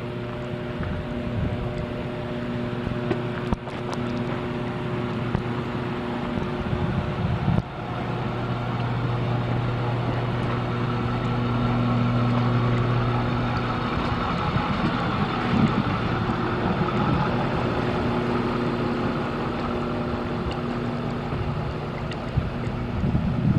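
An engine running steadily with a low, even hum, with wind noise on the microphone. The sound breaks off sharply twice, about four and eight seconds in.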